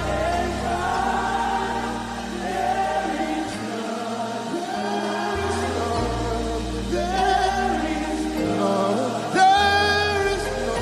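Live gospel worship music: voices singing slow, held lines over sustained bass and keyboard chords, with a louder, higher sung phrase about nine and a half seconds in.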